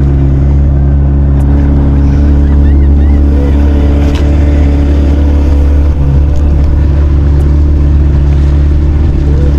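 Outboard motor running steadily under way, driving a small open fishing canoe, with a constant low drone.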